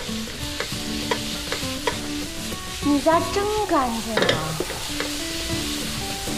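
Stir-frying in a wok: shredded vegetables sizzle in hot oil while a spatula scrapes and clicks against the pan.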